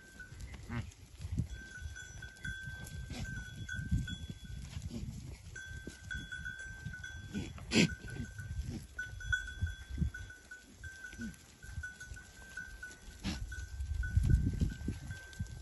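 A herd of long-haired goats grazing, with goat calls and the sounds of the animals moving about. A thin, steady high tone comes and goes, and there are two sharp clicks, one about halfway through and one near the end.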